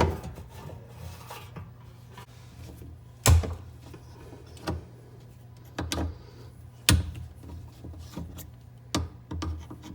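Irregular sharp metal knocks and clanks, about seven of them spaced a second or so apart, from tools and parts being handled on a backflow preventer, over a low steady hum.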